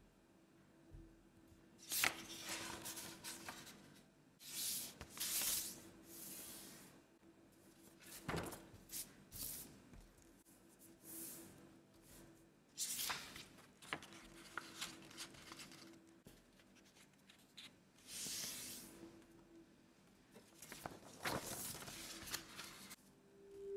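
A sheet of A4 printer paper being handled and folded by hand: irregular rustling swishes, with a few sharp crisp snaps as creases are pressed.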